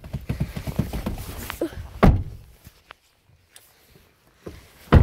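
Rustling and small knocks as someone climbs into a car, then a car door shutting with a heavy thud about two seconds in. A second thud comes at the very end.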